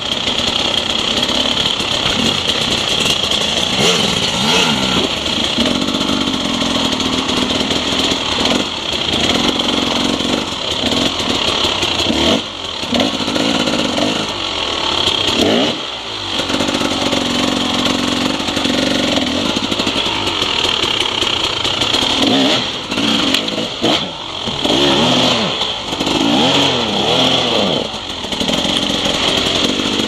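Enduro motorcycle engine revving up and down over and over as the bike rides a rough woodland trail, the pitch rising and falling every second or two.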